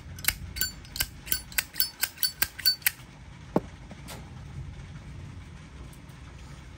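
A silver-plated Zippo lighter's hinged lid being flicked open and snapped shut repeatedly, about a dozen sharp metallic clicks in quick succession over the first three seconds, then one more click a little later.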